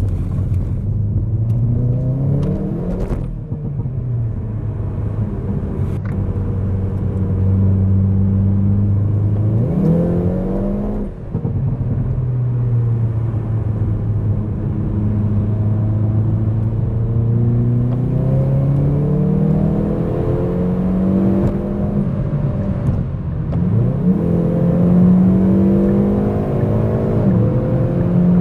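Hyundai i30 N's turbocharged 2.0-litre four-cylinder engine under hard acceleration: its pitch climbs steadily, then drops sharply at each upshift, about four times, with a longer, slower climb in a high gear in the middle.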